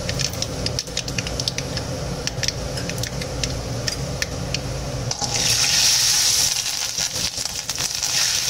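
Mustard seeds popping in hot coconut oil in a steel kadai: a run of sharp crackling clicks. About five seconds in, green chillies and curry leaves go into the oil and it breaks into a loud, steady hissing sizzle.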